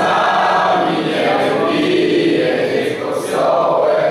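A group of party guests singing a birthday song together, many voices at once.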